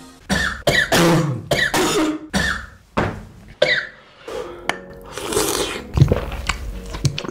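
A man coughing in a string of short coughs, choking on a sip of spicy red broth.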